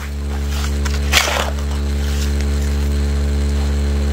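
12V vibrating motor on a homemade bucket classifier humming steadily. A shovel scrapes and crunches into gravel and dirt about half a second in and again, louder, just over a second in.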